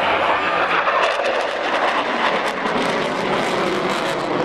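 Jet noise of an F-16 fighter in a display flight overhead: a steady rush with a crackling edge.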